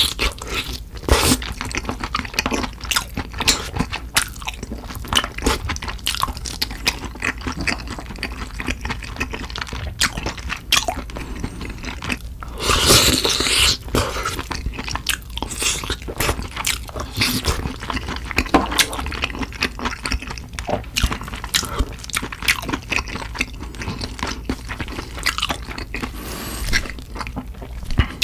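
Close-miked eating of sauce-covered barbecue rib meat: wet chewing and biting with frequent small crunches and clicks. About halfway through there is a louder noisy stretch lasting about a second.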